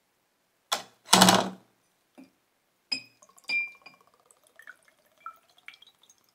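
A short loud clatter about a second in, then rusty brass lighter parts clinking against a glass jar and going into its liquid, with a trickle that rises in pitch and drips falling back into the jar.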